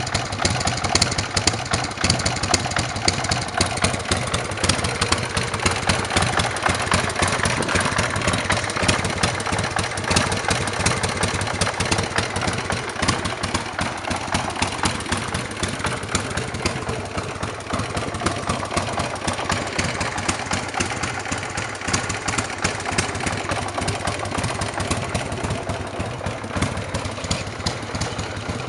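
Buell M2 Cyclone's air-cooled V-twin idling steadily through a Vance & Hines exhaust with the silencer insert fitted.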